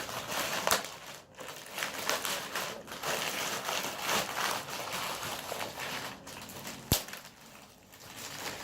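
Packaging being handled and opened: irregular rustling and crinkling with small clicks, and one sharp click about seven seconds in.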